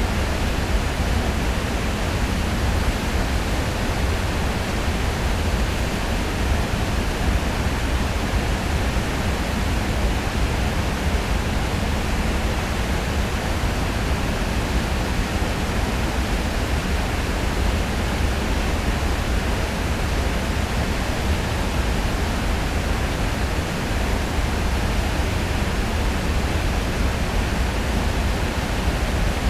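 River water pouring over a weir in a heavy, loud, steady rush, with a deep low rumble under the spray.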